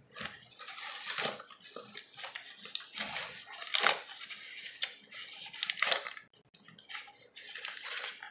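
Cardboard box of Argo corn starch being torn open by hand: crinkling and tearing of the cardboard top and its wrapping, loudest about four and six seconds in.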